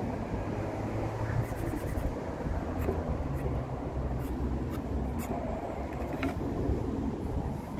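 Wind rumbling on the microphone, with light pencil scratches and small clicks as a pencil marks a cupboard door against a wooden jig. There is a quick run of ticks about a second and a half in, then scattered single clicks.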